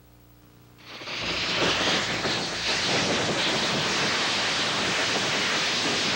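A loud, steady rushing hiss with no pitch to it starts suddenly about a second in and holds evenly.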